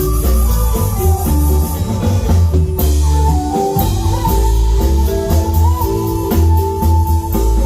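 Marimba band playing a steady dance beat, with mallet-struck marimba notes over drum kit and a strong bass line.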